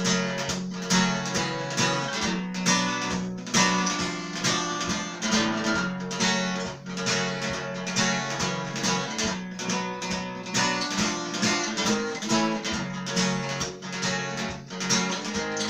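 Acoustic guitar strummed in a steady rhythm, chords played without singing as an instrumental break between verses.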